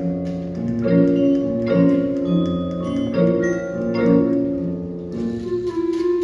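Instrumental music: ringing mallet-percussion chords, struck anew roughly every 0.8 s.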